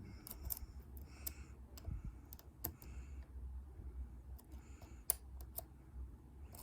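Lock pick and tension tool working the pins of a dimple-lock euro cylinder: irregular small metallic clicks and light scraping, the sharpest click about five seconds in.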